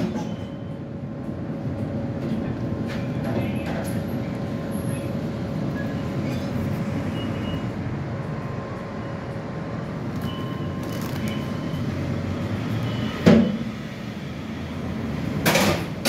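Tram passing close by: a steady rumble of its running gear on the rails, with a faint steady whine. Two loud knocks come near the end, about two seconds apart.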